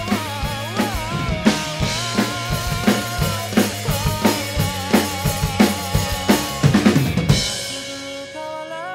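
Rock drum kit played along to a band recording: a steady beat of kick and snare under a wavering lead melody. About seven seconds in it builds into a fast drum fill that stops on a crash, and the cymbal and a held chord ring on more quietly.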